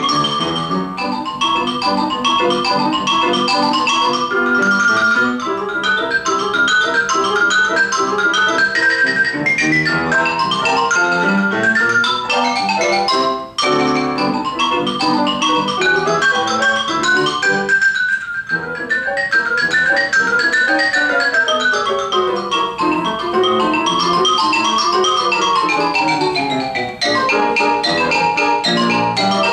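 Xylophone played fast with mallets, running rapid scale passages up and down, with grand piano accompaniment. The music breaks off briefly about thirteen seconds in, then carries on.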